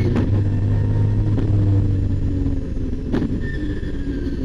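RB26 twin-turbo straight-six of a Nissan R32 Skyline race car, heard loud from inside the cabin, running hard near 7,500 rpm. It takes an upshift and pulls on at lower revs, then eases off near the end, with a few sharp clicks along the way.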